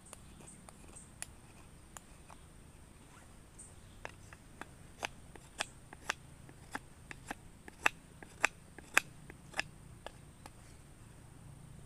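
Folding knife blade cutting into a wooden stick, sharp clicks of the blade biting into the wood. A few faint ones at first, then about two a second from about four seconds in.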